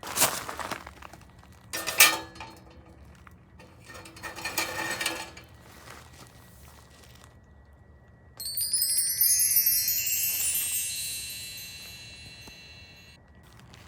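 A few short clinks and rustles of handling, then, about eight seconds in, a bright shimmering chime of many high ringing tones that fades away over several seconds.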